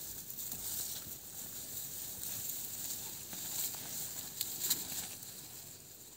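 Water buffalo grazing in leafy undergrowth: irregular crisp snaps and rustles of plants being torn and chewed, over a steady high hiss.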